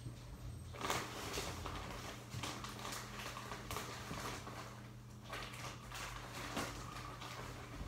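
Hands scooping and spreading colourful hamster bedding in a clear plastic bin: a string of short rustles and crunches.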